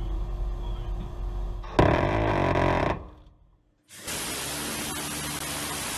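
Phalanx CIWS 20 mm six-barrel Gatling gun firing: a burst of about a second, a dense rapid-fire buzz, about two seconds in, then after a short break a longer unbroken burst from about four seconds on. Before the first burst there is a low rumble.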